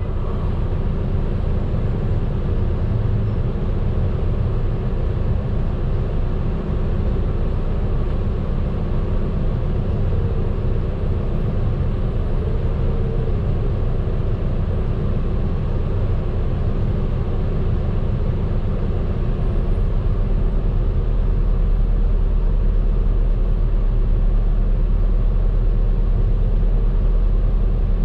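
Medium bus running on the road, heard from inside the cabin: a steady engine and road rumble. About two-thirds of the way through, a deeper low rumble comes in and the sound grows a little louder.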